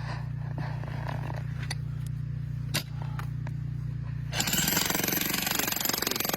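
A jackhammer starts up about four seconds in and hammers rapidly into shale rock. Before it starts there is a steady low hum with a few sharp clicks.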